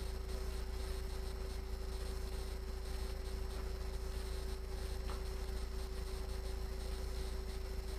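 Steady low rumble with a constant humming tone, unchanging throughout.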